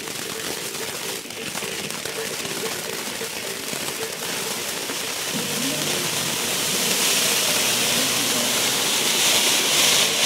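Ground fountain firework spraying sparks with a steady hiss that grows louder and brighter in the second half as the fountain reaches full height.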